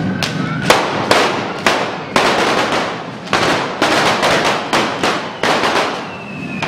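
Correfoc pyrotechnics going off: a rapid string of firecracker bangs, roughly two a second with a short break in the middle, each followed by the hiss of spark fountains.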